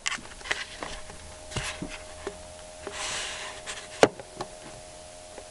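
Handling noise from setting up gear: scattered small clicks and knocks, a short rustle about three seconds in and one sharp click just after four seconds, over a faint steady hum.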